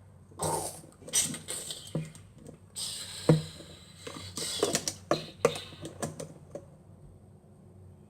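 Small plastic Lego pieces and minifigures being handled: scattered clicks, taps and rustles at an uneven pace.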